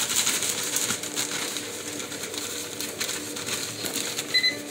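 Clear plastic bag crinkling and rustling as dough balls are shaken in it with cinnamon sugar. A short high beep sounds near the end.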